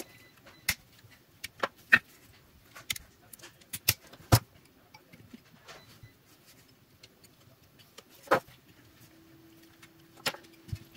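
Hand tools and a lithium-ion battery pack being handled on a workbench: pliers and a screwdriver picked up and set down, with scattered sharp clicks and light metal clinks at uneven intervals.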